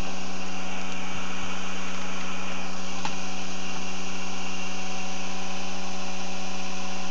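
Experimental three-phase pulse motor running steadily: a constant buzzing hum with a strong low tone and a stack of overtones, unchanging in pitch and loudness.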